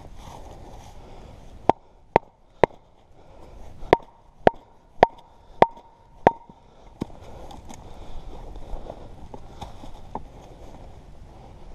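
An axe splitting a piece of firewood: a run of about ten sharp strikes, most roughly half a second apart, several with a brief metallic ring.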